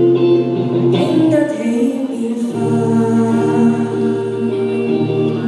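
Choir singing sustained chords in several parts. The lowest part drops out briefly about two and a half seconds in, then comes back.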